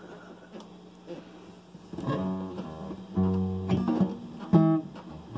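Acoustic guitar: after a quiet start, a few chords are strummed from about two seconds in, each left to ring.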